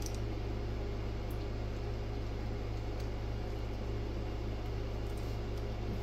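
Steady low electrical hum with room noise, and a few faint small clicks from a hand crimping tool being handled.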